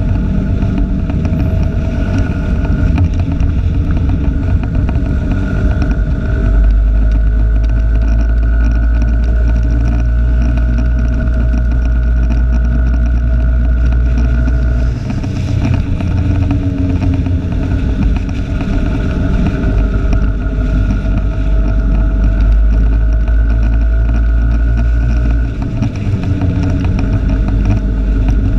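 Vehicle on the move, heard through a camera clipped to its rear-view mirror: a heavy low wind rumble on the microphone over a steady engine hum with a whine in it, easing off briefly twice.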